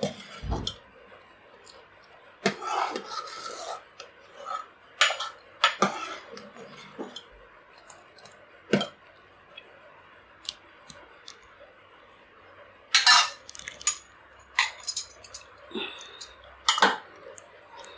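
A steel spoon stirring and knocking against a stainless steel pot of milk curdled into paneer curds and whey: irregular metallic clinks and scrapes, the loudest cluster about thirteen seconds in.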